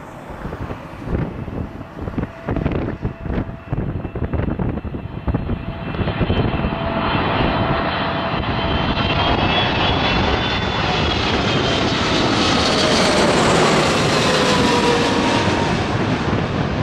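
Boeing 777-300ER's GE90 turbofans on final approach, flying low overhead: the engine noise swells to its loudest near the end, with whining fan tones that slide down in pitch as the jet passes. Wind gusts buffet the microphone during the first few seconds.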